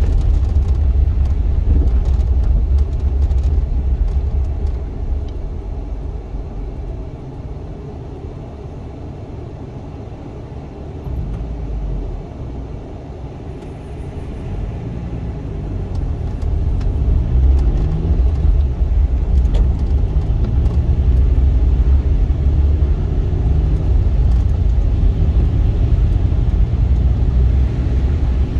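Cabin sound of a 2001 Suzuki Swift's 1.3-litre four-cylinder with tyre rumble on a slushy road. It fades as the car slows to a near stop about five seconds in. From about fourteen seconds in, the engine pitch rises and drops several times as it pulls away through the gears of its manual gearbox, then settles into a steady cruising rumble.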